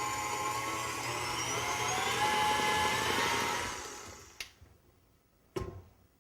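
Stand mixer running on high speed, whipping meringue to stiff peaks: a steady motor whine whose pitch creeps up, then switched off and winding down a little over halfway through. Two sharp knocks follow about a second apart.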